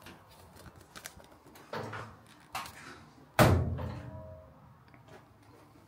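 Cabinet door knocked about, then banged shut about three and a half seconds in, leaving a short ringing tail.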